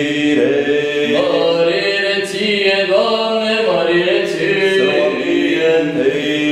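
Orthodox liturgical chant: voices singing long, held notes that glide slowly from pitch to pitch, with a steady low note sustained beneath.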